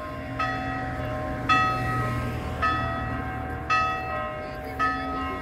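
A church bell tolling at an even pace, one stroke about every second, five strokes in all, each left ringing as it fades.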